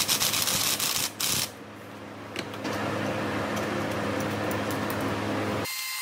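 Cordless impact driver working the front axle bolt of an electric dirt bike, a rapid run of clatters for about the first second and a half, over a steady mechanical hum that carries on after.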